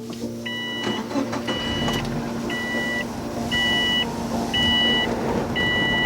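Subaru WRX's in-car warning chime: six short two-tone beeps, evenly spaced about a second apart, just before the engine is started.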